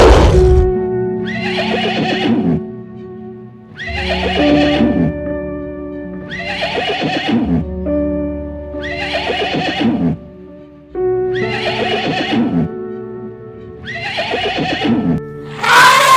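Horse whinnying again and again, about every two and a half to three seconds, each call sliding down in pitch, over background music with held notes.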